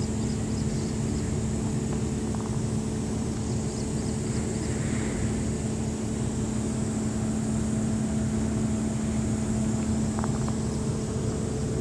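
A machine running steadily at an even pitch: the constant drone of a motor or engine, with a few faint ticks near the end.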